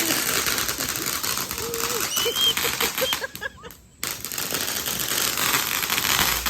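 Small fountain firework spraying sparks with a dense, rapid crackle; the crackling drops out briefly a little before halfway, then starts up again.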